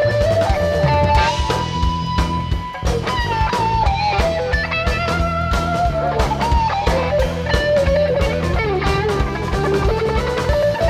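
Live rock band playing an instrumental stretch: an electric lead guitar solos with held notes and pitch bends over drum kit and bass guitar.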